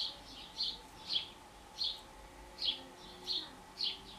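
A small bird chirping over and over, about seven short high chirps, roughly one every two-thirds of a second.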